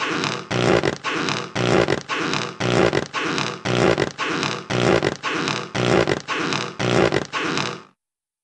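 Cartoon squeaky-footsteps sound effect: a steady run of squeaking steps, a little over two a second, that stops abruptly near the end.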